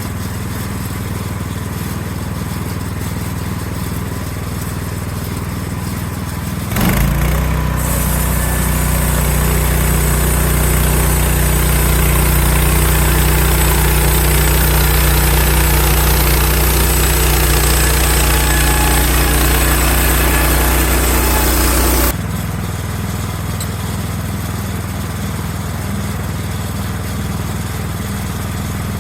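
Portable band sawmill with its gas engine running steadily. About seven seconds in, the engine note changes and the band blade cuts through a log with a loud hiss for about fifteen seconds. The cut stops suddenly, leaving the engine running as before.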